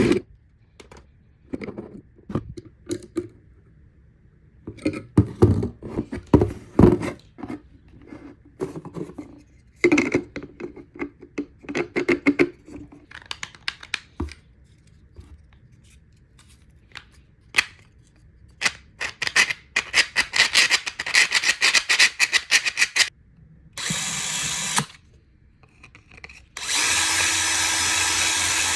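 Clicks and rattles of small hard parts being handled, in scattered runs, then a power drill runs: a brief burst near the end followed by a steady spin of about two seconds.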